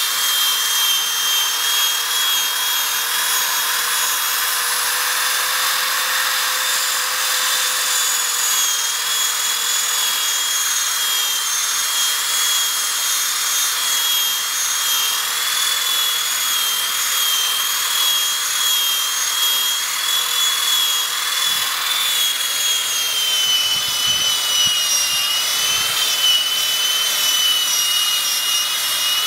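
Power-driven buffing pad polishing a boat nameplate with polish and water: a steady high motor whine over a rubbing hiss, the whine wavering slightly lower in the last few seconds.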